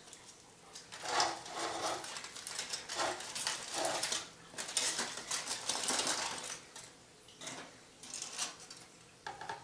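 Aluminum foil crinkling and irregular clinks of utensils and a plate as a cooked pork loin is handled, a dense clatter for most of the time that thins out to a few clicks near the end.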